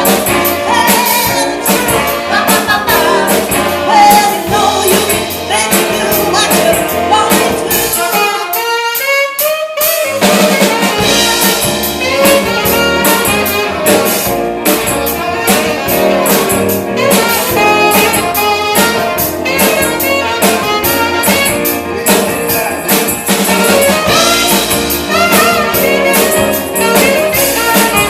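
Live band with a horn section and drum kit playing jazzy music. About eight seconds in, the bass and drums drop out for about two seconds while the upper parts carry on.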